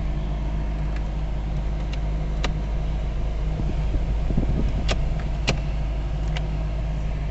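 A Fiat Palio's starter cranking the engine steadily without it catching, with a few sharp clicks over it. The engine turns over but does not fire, a no-start that the mechanic puts down to no current reaching the ignition coil and a faulty engine control module.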